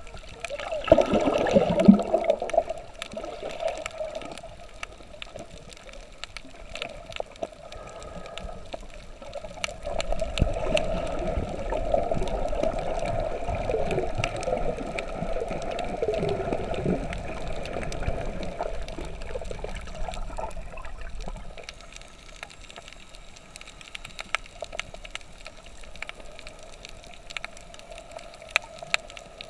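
Water gurgling and churning close to the microphone, over a steady droning hum and scattered small clicks. The water swells loudest about a second in and again from about ten to seventeen seconds.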